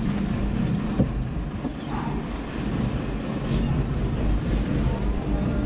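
Sport-fishing boat's engine running steadily, mixed with wind noise on the microphone, with one sharp click about a second in.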